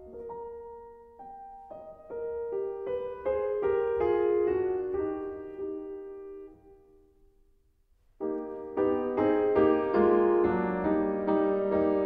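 Solo piano music: single notes climb in a rising run and ring away to near silence, then fuller chords start again about eight seconds in.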